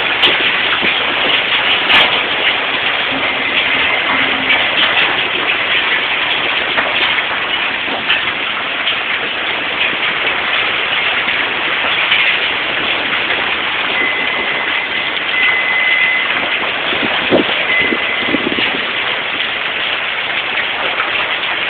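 Hailstorm downpour: heavy rain and hail pelting down in a steady, dense hiss, with a few sharper knocks of single impacts.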